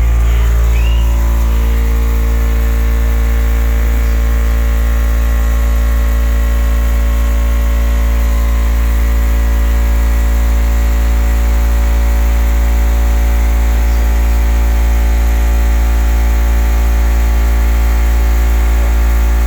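Car audio subwoofer system playing a loud, steady deep bass tone for a dB drag sound-pressure run, with fainter higher overtones above it; the tone holds at a constant level.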